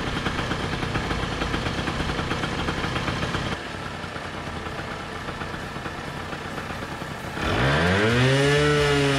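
A 1984 Honda Aero 125 scooter's freshly revived engine running at a fast, busy idle. It drops to a lower idle about a third of the way in. Near the end it revs up quickly and holds at higher revs.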